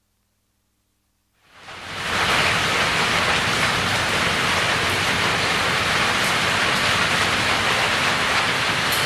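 Heavy rain fading in after a second and a half of near silence, then a steady hiss of downpour.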